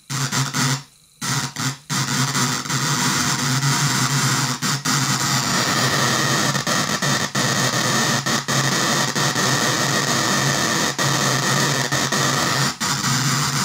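Music from a phone played back through a 20-watt loudspeaker by the contacts of an ordinary relay switching a 9-volt battery on and off in time with the signal: a harsh, distorted buzzing cacophony with no recognisable melody. It drops out briefly about a second in, then runs on with only brief gaps.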